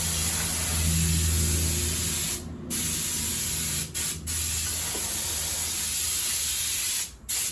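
Paint spray gun hissing as it lays on mixed urethane primer sealer, in long passes with a few brief breaks where the trigger is let off. A low steady hum runs underneath.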